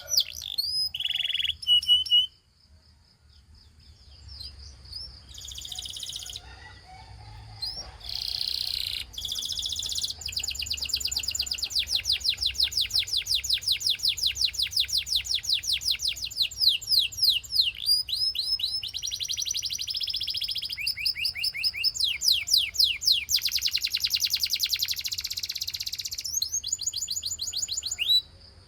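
Gloster canary singing long runs of rapid trills and rolls, some passages over a steady high whistled note. The song breaks off for a couple of seconds near the start, then resumes and runs almost without a break.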